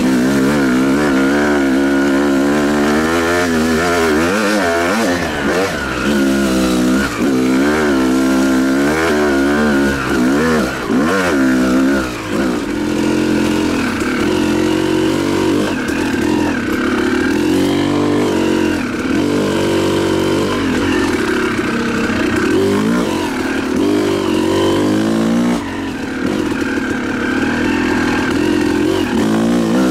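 Yamaha YZ250 single-cylinder two-stroke dirt bike engine being ridden, revving up and down over and over as the throttle is worked. The pitch climbs and drops about once a second in the first half, then holds steadier with shorter dips.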